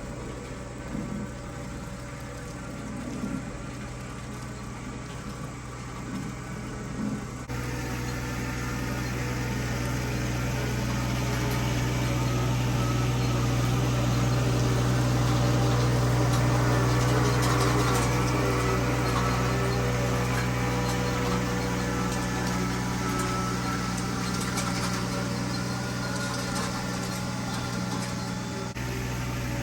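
A vehicle engine running steadily with a low hum. It gets abruptly louder about seven seconds in and drops back slightly near the end.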